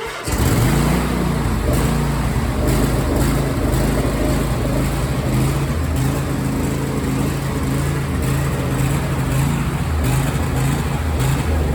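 Husqvarna riding mower's engine running, coming in sharply at the start and holding a steady, slightly wavering pitch.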